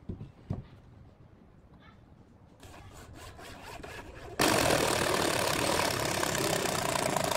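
A few light wooden knocks, then about four seconds in a handheld corded electric power tool starts suddenly and runs loud and steady, cutting off abruptly near the end.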